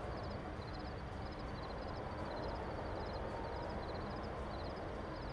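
Haunted-house night ambience playing back: crickets chirping in quick groups of short high notes, a little under two groups a second, over a steady low background noise.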